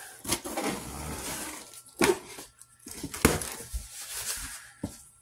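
A knife blade slitting packing tape along the top seam of a cardboard box, a scratchy drawn-out cut, then the box's cardboard flaps pulled open with a few sharp knocks and rustles.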